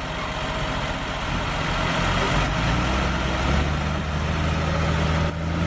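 Heavy truck engine running under load, a steady low drone with broad mechanical noise that builds up and strengthens about a second and a half in.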